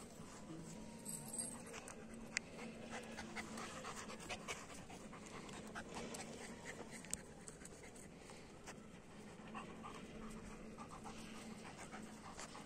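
Long-haired German shepherd panting, with a few faint scattered clicks.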